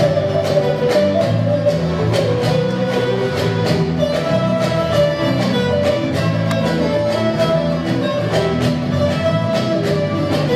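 Large ensemble of bağlamas, Turkish long-necked lutes, playing a Turkish folk tune in unison with fast, even strumming.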